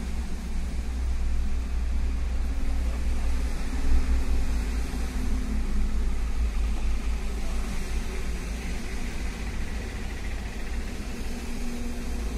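A steady low rumble with a faint hum over it.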